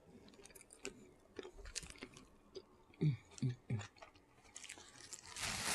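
Close mouth sounds of someone eating chicken: chewing and lip smacking with scattered crunchy clicks. About three seconds in come three short, loud, low sounds in quick succession, and near the end a loud hissing rustle begins.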